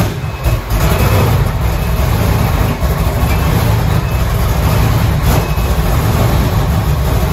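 Performance powerboat engine running loud and steady, a deep rumble heaviest in the low end, coming in suddenly at the start.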